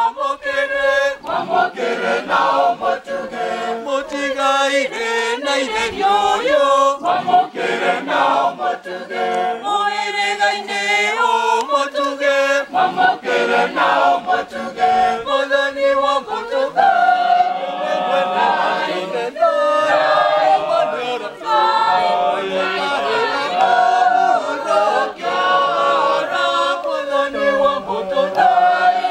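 A mixed group of men's and women's voices singing a Kikuyu Catholic hymn together, unaccompanied.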